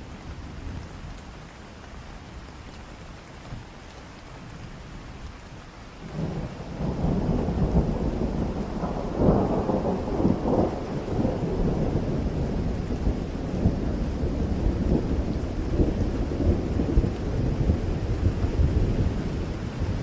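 Steady rain falling, then about six seconds in a long, low roll of thunder comes in, loudest a few seconds later and rumbling on.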